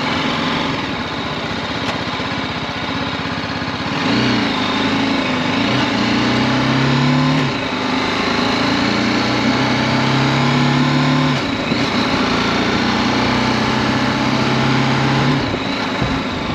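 BMW G310GS single-cylinder motorcycle engine under way over steady wind rush. About four seconds in it pulls harder, climbing in pitch with two short dips, then holds steady and eases off near the end.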